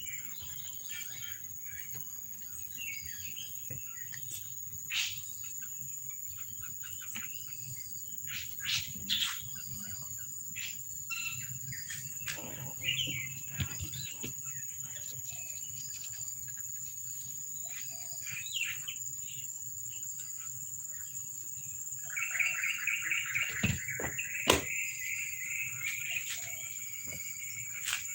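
A steady high-pitched insect drone, like crickets, with scattered bird chirps. A fast rippling bird trill comes in about 22 seconds in, and there is a sharp click a couple of seconds later.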